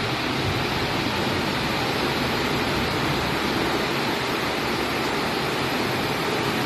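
Heavy monsoon rain pouring steadily outside, heard from inside a house as an even, unbroken hiss.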